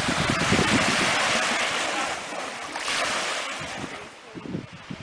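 Wind-driven waves washing onto a lakeshore, a steady rushing hiss, with gusts of wind buffeting the microphone. It eases off about three and a half seconds in.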